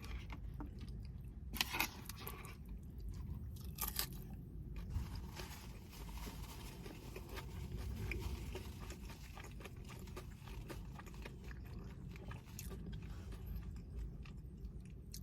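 Close-up chewing and crunching of food, with two sharper crunchy bites in the first four seconds and softer chewing after, over a low steady rumble.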